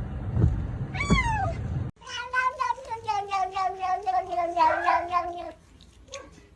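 Domestic cat meowing: one short falling meow about a second in, then after an abrupt break a long drawn-out yowl of about three and a half seconds, pulsing quickly and sagging slowly in pitch.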